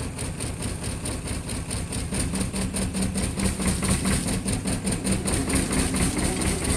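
Bolinder-Munktell Victor 230 tractor's engine idling steadily with an even pulsing beat.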